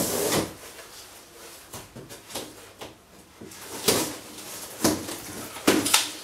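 Hands handling a large cardboard box: scattered scrapes and knocks on the cardboard, the loudest about four, five and six seconds in.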